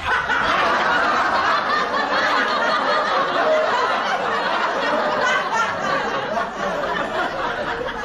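Sitcom laugh track: a crowd laughing steadily and densely after a punchline.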